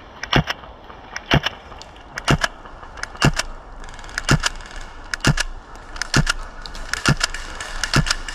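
Footsteps at a steady walking pace, about one a second, with loose kit jangling at each step and rustling in between.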